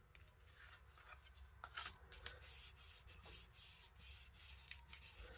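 Faint rubbing and scuffing of hands pressing and smoothing down the paper back of a card, with a light tap about two seconds in.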